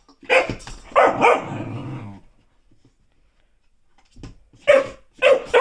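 Dog barking at a noise-making ball toy: a few barks trailing into a growl, a pause of about two seconds, then two sharp barks near the end.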